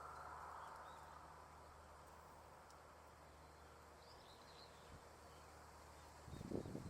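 Near silence: faint outdoor ambience with a steady low hum, a few faint high bird chirps in the middle, and a brief low rumble of thumps near the end.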